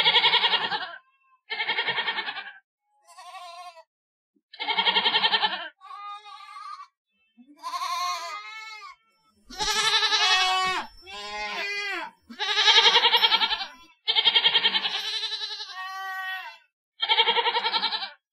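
Goats bleating: about a dozen separate calls, each a second or two long with short silences between, varying in pitch and loudness, several with a wavering quiver.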